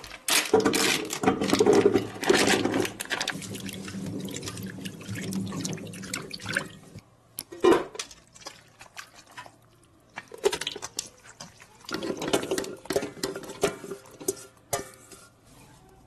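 Tap water running and splashing into a stainless steel sink as hands are washed, loudest in the first few seconds. There is a single sharp knock about eight seconds in, and another stretch of splashing a few seconds later.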